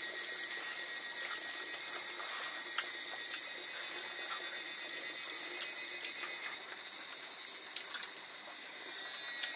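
Steady high-pitched insect chorus at dusk over a soft hiss, with scattered light clicks and taps from people eating by hand off steel plates and cups.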